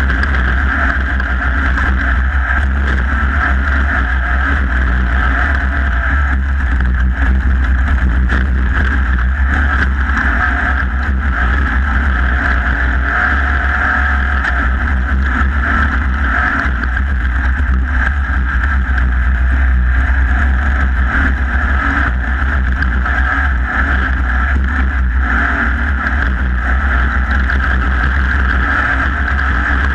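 Off-road race vehicle's engine running continuously at racing speed, heard from on board as a steady, heavy low rumble with noise from the driveline, tyres and wind.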